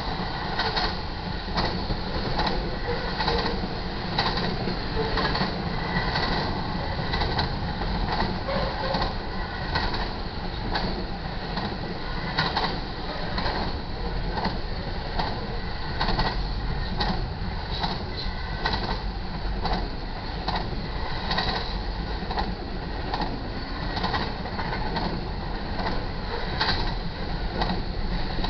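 Intermodal freight train cars rolling past: a steady, unbroken rumble of steel wheels on rail, with frequent clacks as the wheels cross rail joints.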